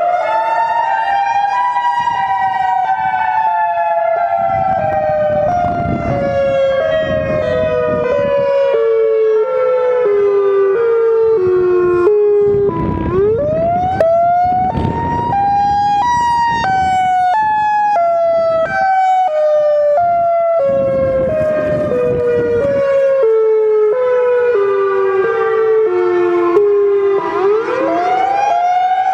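Siren wailing in two pitches at once: each cycle sweeps up quickly to a high pitch, then sinks slowly in small steps over about thirteen seconds. It rises again about thirteen seconds in and once more near the end, over a low rumbling noise that swells and fades.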